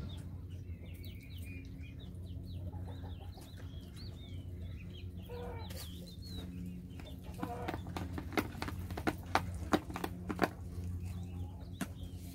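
Chickens chirping and clucking, with short high curving calls through the first half over a steady low hum. Past the middle come a few seconds of sharp clicks and taps.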